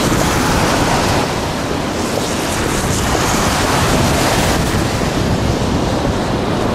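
Steady rushing roar of the Horseshoe Falls and the river below it, mixed with wind buffeting the microphone.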